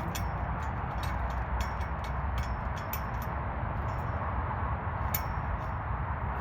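Scattered light clicks and clinks of hardware and frame parts being handled while a folding shooting bench is put together, over a steady background noise.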